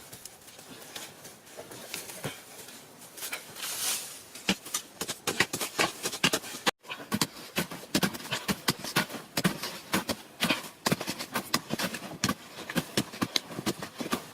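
Rapid, irregular knocks and taps, several a second, starting about four seconds in, with a brief drop to silence a little before the middle.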